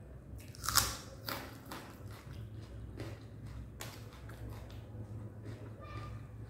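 Close-up crunching as a bite is taken from a piece of raw onion, loudest about a second in, with a second crunch soon after and a sharp click near four seconds, then softer chewing.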